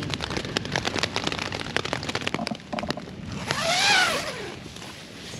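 Crackling rustle of tent fabric and rain, then a tent zipper pulled open in one stroke about three and a half seconds in, its pitch rising and then falling as the pull speeds up and slows.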